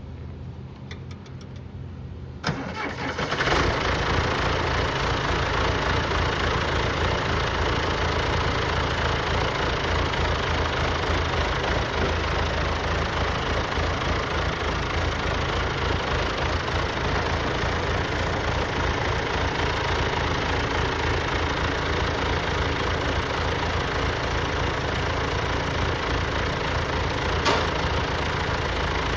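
John Deere 401BD tractor engine starting: a short, quieter turnover, then it catches about three seconds in and settles into running steadily at idle.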